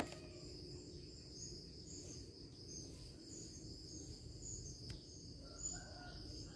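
Faint background of insects chirring in a steady high drone, with short bird chirps coming and going and a low rumble underneath. A single sharp click comes right at the start.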